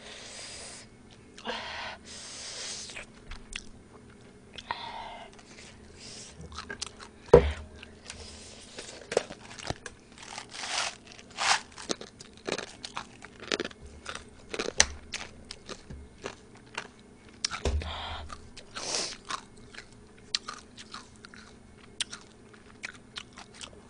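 A person chewing food close to the microphone, with wet mouth clicks and several short breathy hisses.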